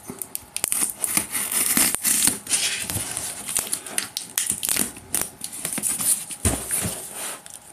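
A craft knife slitting the packing tape along a cardboard shipping box's seam: scratchy cutting, crackling tape and many small clicks and knocks as the box is handled and turned over.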